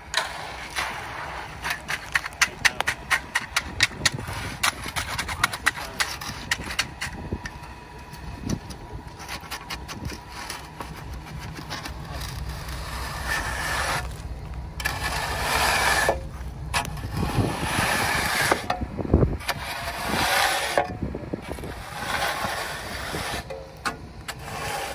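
A ready-mix concrete truck's engine running while wet concrete is worked into a slab form. The first several seconds hold a quick run of scraping clicks as a concrete rake drags through the gritty mix. About halfway in, a long rushing slide of concrete pouring down the truck's chute begins over the engine hum.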